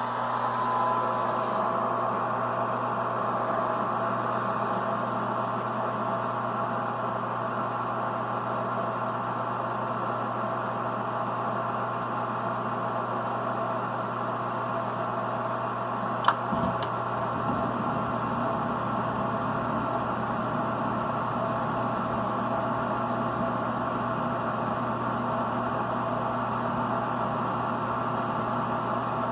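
Inducer fan motor of a 92% efficient gas furnace running at start-up, a steady hum with a fixed tone. About halfway through there is a single sharp click, after which a low rumble joins the hum as the burners light.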